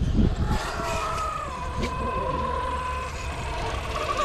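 Electric motor of a radio-controlled scale crawler truck whining under load, a steady high tone that drifts slightly down in pitch.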